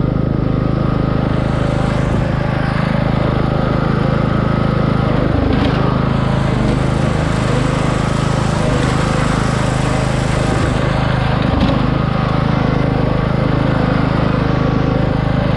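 Craftsman 17.5 hp riding lawn mower engine running at a steady speed.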